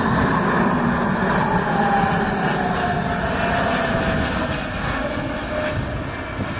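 Boeing C-17 Globemaster III's four turbofan engines as the jet passes overhead and flies away: a steady jet rush with a whine that falls in pitch and slowly fades.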